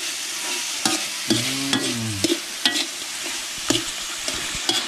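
Meat stir-frying in a large aluminium wok: a steady sizzle, with a metal ladle scraping and knocking against the pan many times as it turns the food.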